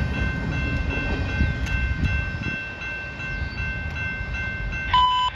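Long freight train rolling past at about 25 mph, a steady low rumble of wheels on rail. Near the end a short electronic tone sounds as the radio keys up for the trackside defect detector's report.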